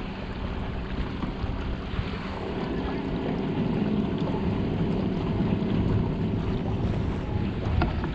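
Wind on the microphone with water moving around a kayak's hull.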